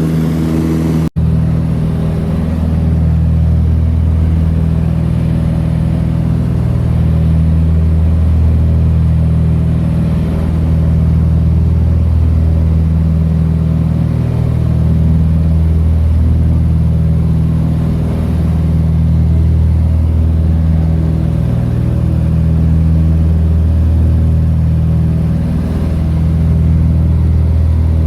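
Aircraft engine drone, a loud steady hum of low engine tones that swells and fades slowly every few seconds. It cuts out for an instant about a second in.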